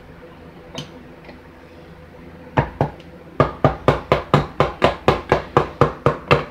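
Utensil knocking on a stainless steel stand-mixer bowl while pound-cake batter is worked: after a couple of seconds of low hum, a steady run of sharp knocks begins, about three to four a second.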